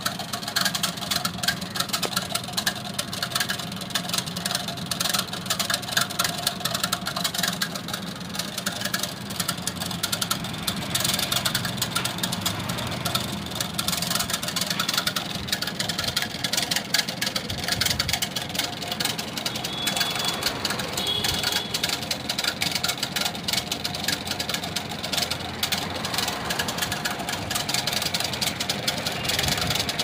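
Motorised coil-winding machine running steadily as it winds copper wire onto a ceiling fan stator's running coil: a steady hum with a fast rattle. It stops right at the end, when the 380-turn count is reached.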